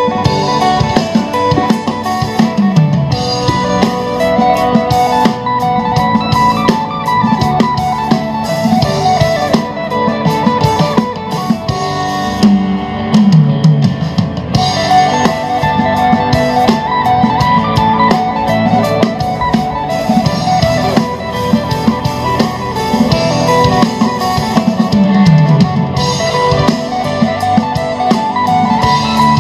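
Guitar and drum music playing through an active subwoofer box with a built-in amplifier, a 5-inch woofer and a horn tweeter, as a sound test. A low bass note slides downward three times.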